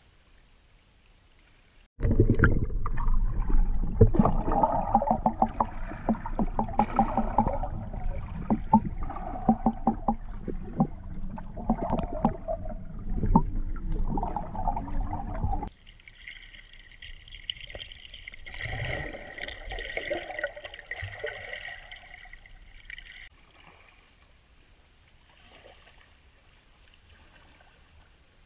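Water heard through a camera held underwater in a clear spring run: a loud, muffled churning with many small clicks and bubbling. It starts suddenly about two seconds in and stops abruptly a little past halfway, leaving fainter water sounds above the surface.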